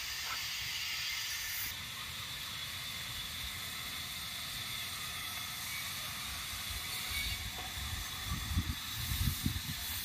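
Steady outdoor background hiss, with irregular low rumbles and thumps on the microphone in the last two or three seconds.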